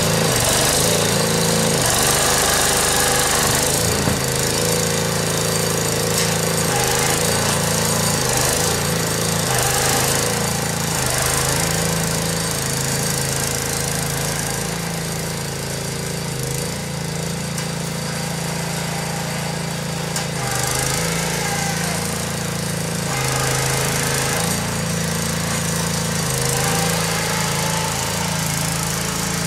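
Small engine of a ride-on snow-plough cart running under load, its pitch stepping up and down as the cart pushes snow with its front blade. It is a little fainter around the middle of the stretch.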